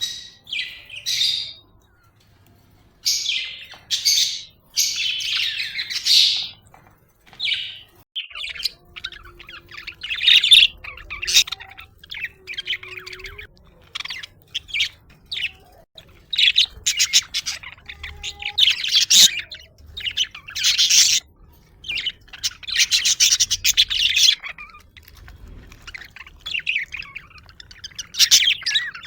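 Budgerigars chirping and warbling in irregular bursts of rapid high chatter, with short pauses between.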